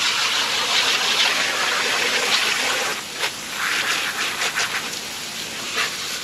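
A spray of water hissing steadily onto a fish to rinse off its slime. It briefly lets up about halfway through.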